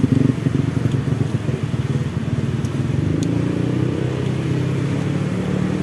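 Street traffic: motorcycle and car engines running on the road beside the stall, a steady low hum. One engine's tone grows more distinct partway through.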